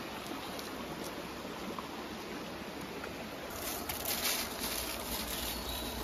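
Steady rushing of a shallow mountain stream over rocks. About halfway through, a brighter and louder hiss joins in.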